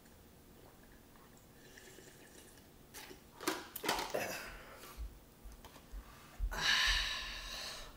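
A man drinking punch from a plastic cup: sips and swallows about three seconds in, soft knocks as the cup is set down on a wooden table, then a long breathy exhale near the end.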